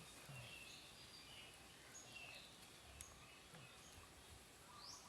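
Near silence: faint outdoor ambience with a few soft, short bird chirps scattered through it, and one faint click about three seconds in.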